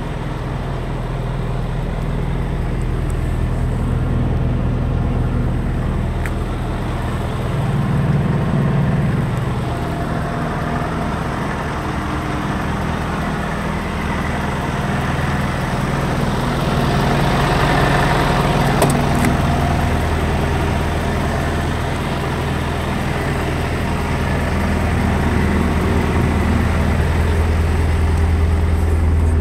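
Scania P280 truck's five-cylinder diesel engine idling steadily.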